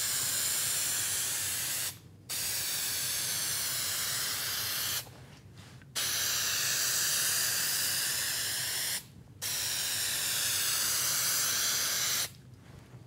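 Aerosol can of spray contact adhesive spraying in long, steady hisses, four in all, with short breaks about 2, 5 and 9 seconds in. The adhesive is going on in an even coat for a glue-up.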